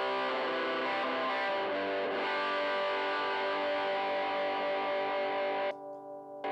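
Electric guitar played through a Joyo crunch distortion pedal into a 5E3 tweed Deluxe-style tube amp, sounding sustained, gritty chords that change every second or two. Near the end the playing drops to a quieter ringing as the pedal loop is switched over.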